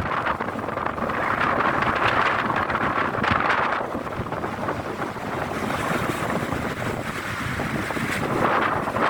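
Strong wind on the microphone, a steady rushing that swells in gusts, with a louder gust a second or so in and another near the end.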